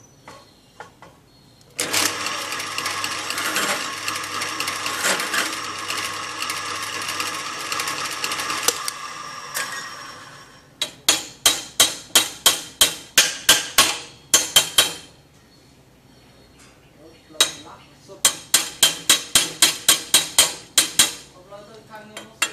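Drill press motor running with its bit cutting into a clamped steel plate for about seven seconds, giving a ringing, whining squeal over a low hum, then spinning down. Then two runs of sharp metallic taps, about three to four a second.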